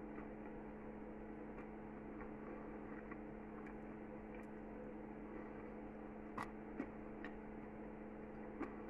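Low steady hum, like mains or appliance hum, with a few faint clicks between about six and nine seconds in.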